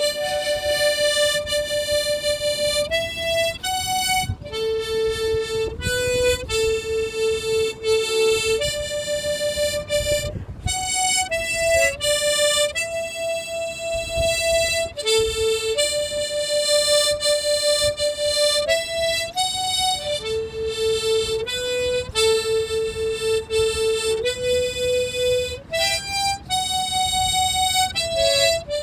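Harmonica played slowly, one note at a time, with long held notes stepping up and down a simple melody, by a learner. A low rumble runs underneath.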